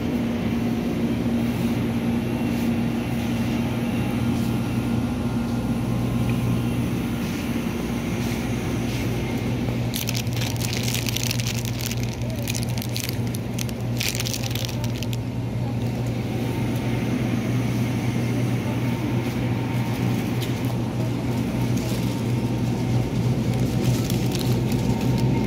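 Steady low hum of shop refrigerators, with a few seconds of crackling rustle about ten seconds in.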